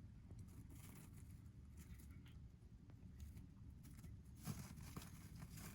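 Near silence with faint rustling and a few light clicks; the sharpest click comes about four and a half seconds in.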